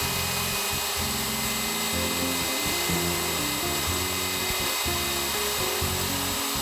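Background music with a melody of low notes, over the steady whine of a Sears Craftsman router running as it cuts into wood.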